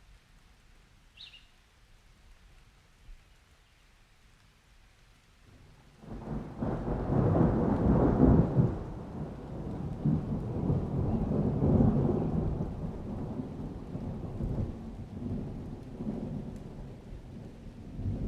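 Thunderstorm: after a few quiet seconds with one faint short chirp about a second in, a deep thunder rumble sets in suddenly about six seconds in. It is loudest around eight seconds and keeps rolling, with rain.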